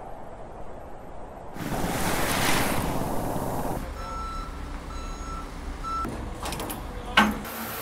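Heavy-equipment warning beeper sounding four times in a row over outdoor machinery noise, followed near the end by a single sharp knock.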